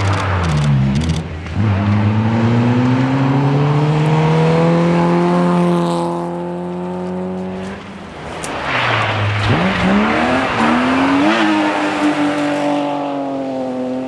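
Rally car engines on a gravel stage. A Renault Clio rally car's engine note dips briefly, then rises steadily in one long gear for about six seconds before fading. A little over halfway through, another rally car's engine comes in, revving up sharply with a gear change.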